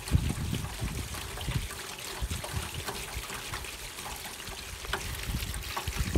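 Rain falling steadily, with water trickling and splashing from a gutter downspout and scattered drips.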